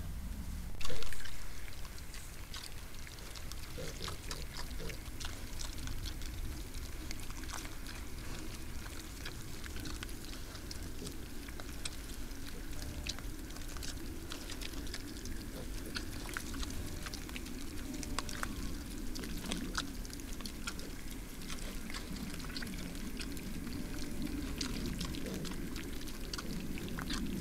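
Wild boar piglets foraging at a pond's edge: a steady run of small crackles and clicks from rooting in gravel and mud, with low, rough, grunt-like sounds and water sounds. A brief louder noise comes about a second in.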